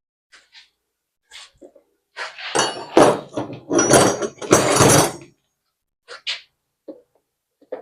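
Light clicks, then about three seconds of loud clattering and rustling, then a few more clicks: parts and tools being handled while a dirt bike is taken apart.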